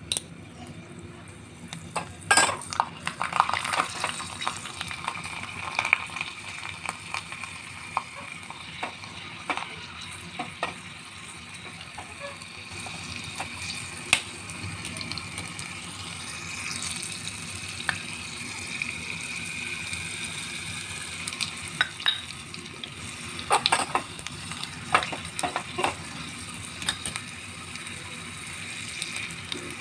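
Something sizzling in a hot pan while being stirred, with a spoon clicking and scraping against the pan throughout and in clusters near the start and later on.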